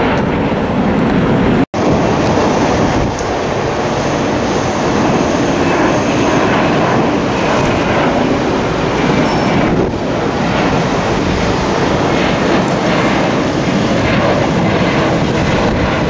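Loud, steady jet-engine noise of a twin-engine Boeing 767 airliner climbing out after takeoff close overhead. About two seconds in there is a momentary dropout where the sound cuts from one departing jet to the next.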